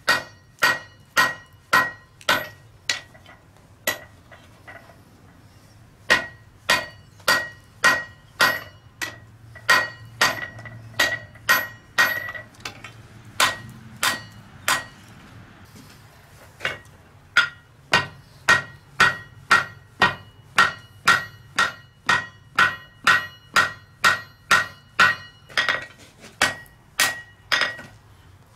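Hand hammer blows on red-hot bar stock over a steel anvil, each strike ringing briefly. The blows come steadily at about two a second, with two short pauses.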